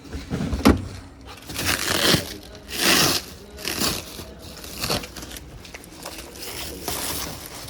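Packaging on a washing machine being pulled off and crumpled: several separate rustling, tearing swells with a sharp click near the start.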